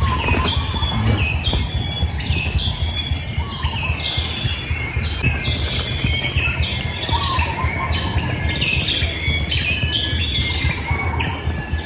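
Birds calling in a forest, short high chirps repeating and overlapping steadily, over a continuous low rumble.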